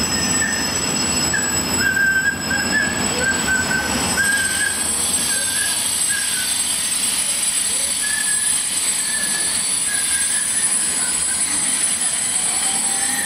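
Intermodal freight train's wagons rolling past, their wheels giving a run of short, broken high-pitched squeals over a steady rail rumble.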